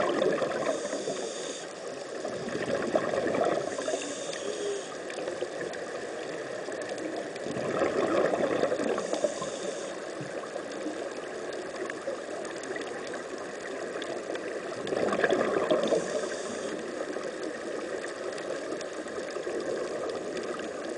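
Air bubbling and gurgling underwater as it streams out of sea-walking helmets, heard through a submerged camera and swelling in surges every few seconds.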